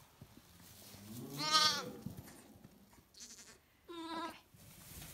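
Young bum lambs bleating twice: a loud, quavering bleat about a second and a half in, and a shorter one near four seconds.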